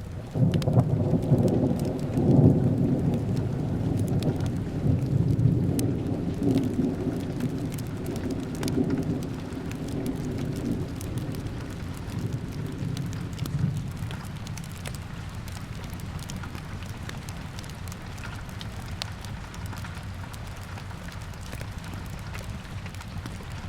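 A rolling thunder clap breaks in just after the start, loudest in the first few seconds, then rumbles and slowly fades away over about fourteen seconds. Steady rain falls throughout, with scattered light crackles from a fireplace.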